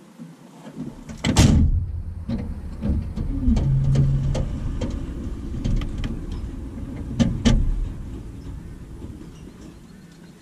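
A ute towing a horse float driving past on gravel: a low engine and tyre rumble, with the float knocking and rattling over bumps, the loudest knock about a second and a half in. The rumble fades as it pulls away.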